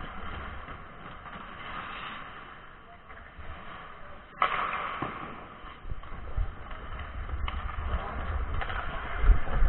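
Ice hockey skates scraping and gliding on rink ice, with a gusting wind-like rumble on a skater's moving camera microphone. A sharp knock comes about four and a half seconds in, followed by louder scraping.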